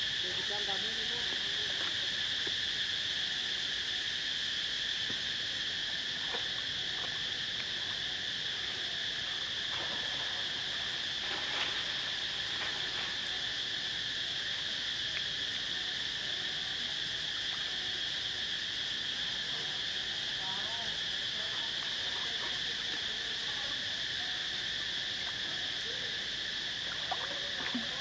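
Steady, shrill insect chorus, a constant high drone, with faint short chirps now and then and a couple of brief clicks above it.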